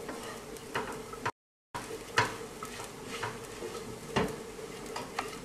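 Wooden spoon stirring and scraping fine breadcrumbs frying in oil in a metal frying pan, with irregular scrapes over a low sizzle as the crumbs take colour in the oil. The sound cuts out completely for a moment about a second and a half in.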